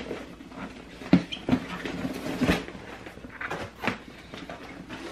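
Corrugated cardboard box being opened by hand: the lid and flaps scraping and rustling, with a few sharp knocks of cardboard.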